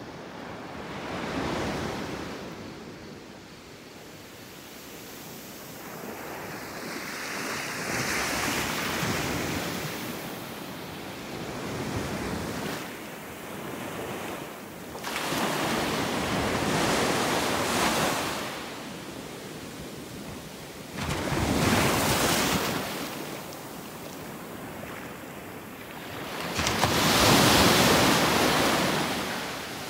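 Ocean surf breaking and washing up a beach, rising and falling in swells every few seconds, the loudest near the end.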